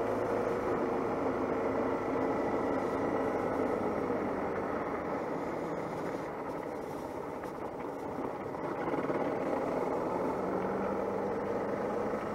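Suzuki DR650's single-cylinder four-stroke engine running under way on a gravel road. The engine eases off about six seconds in and picks up again about nine seconds in.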